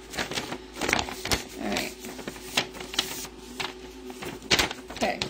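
Sheet of paper being handled and unfolded, rustling and crinkling in irregular crackles.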